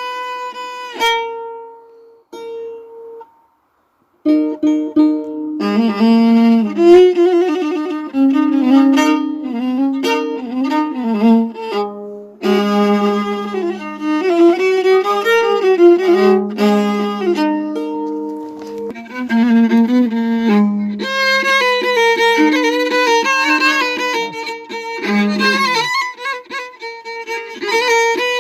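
Instrumental background music with a sliding, melodic lead line. It cuts out briefly about three seconds in and resumes about a second later.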